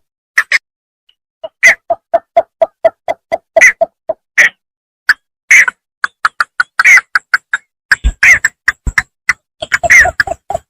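Bittern calling: a fast series of short, clipped notes. After a brief pause, an even run of low notes comes at about four a second, mixed with louder, higher calls that crowd together near the end.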